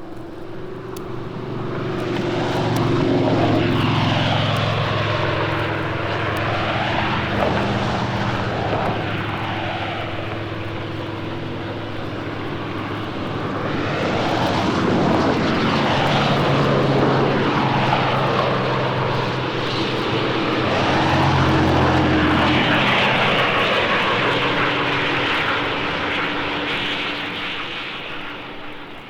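Propeller airplane engine running, swelling louder, easing off, swelling again and fading near the end.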